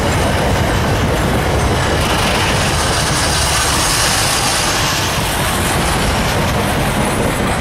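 Container wagons of a freight train rolling past on the track: a steady rumble and rattle of steel wheels on the rails, with a brighter high hiss in the middle.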